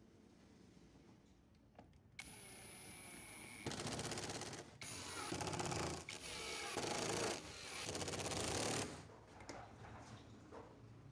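An electric power tool starts with a steady high whine, then grinds or cuts loudly in several bursts with a fast rattling buzz, stopping about nine seconds in.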